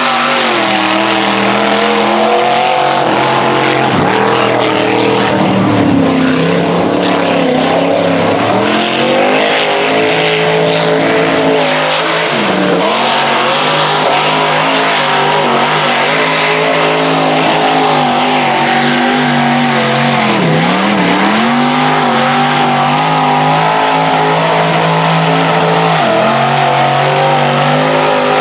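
Mud truck's engine revving hard and continuously as it pushes through deep mud, the revs surging up and down; twice the revs drop sharply and climb straight back. Mud spraying off the spinning tyres under the engine noise.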